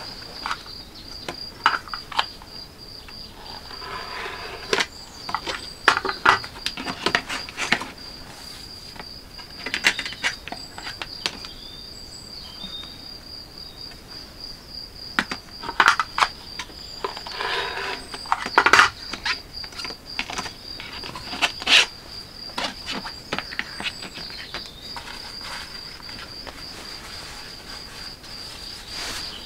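Leather being cut on a plastic cutting mat with a rotary cutter and a steel ruler: scattered taps and knocks with a few short scraping runs. A steady, high insect trill carries on underneath.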